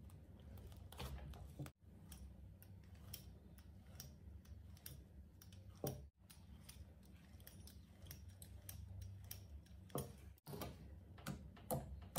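Silver-tinted clear slime being pressed, scored and poked by fingers, giving a quick run of small sticky clicks and pops. The sound drops out abruptly three times.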